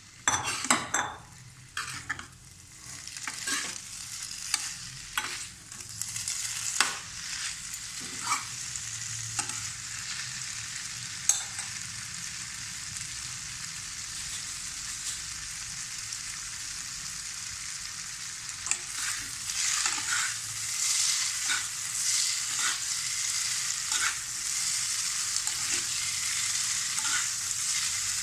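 Noodles and vegetables stir-frying in oil in a kadhai, sizzling steadily. A spatula knocks and scrapes against the pan many times in roughly the first ten seconds, and the sizzle swells now and then later on.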